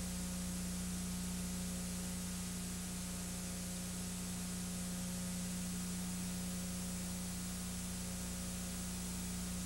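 Steady hiss with a low electrical hum, unchanging throughout: the noise of the transfer chain on a silent home-movie film, with no sound from the scene itself.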